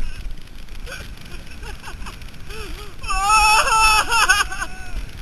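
Two girls screaming on an alpine coaster sled: short, broken high yelps, then about three seconds in a loud stretch of overlapping screams lasting about a second and a half, over steady low wind and track noise from the running sled.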